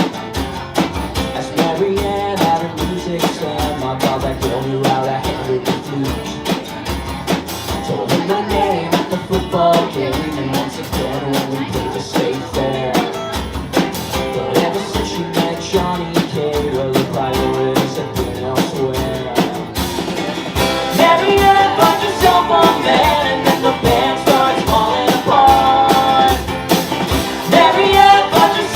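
Rock band playing live: electric guitars, bass and drum kit, with singing. The band gets louder about twenty seconds in.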